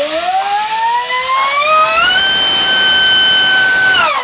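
Dr Mad Thrust 2870 3000 kV inrunner brushless motor driving a 4.1 by 4.1 inch TGS propeller on a 5-cell battery, run up for a thrust test. Its whine rises over about two seconds and holds steady at full throttle over rushing prop noise, then falls away as it spools down near the end.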